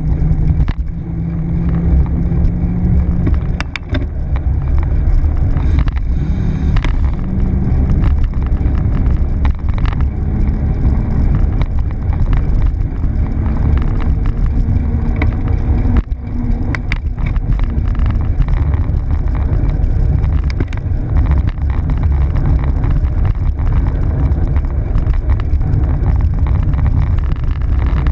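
Wind rumbling on a bicycle-mounted camera's microphone, mixed with tyre and road noise from riding. A few sharp clicks come through now and then.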